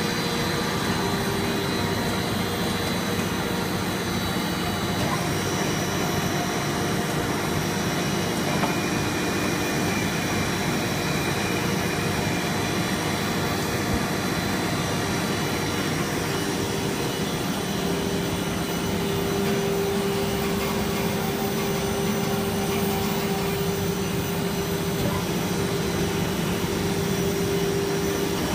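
Steady mechanical drone of a running PVC sheet extrusion line: the drive motors and machinery of the extruder and roller stands, with a humming tone that grows stronger a little past halfway.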